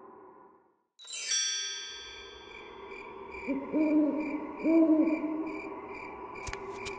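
A shimmering chime sweeps down about a second in and rings on. Then owl hoots come twice, each a double 'hoo', over a soft pulsing tone. A ticking rhythm starts near the end.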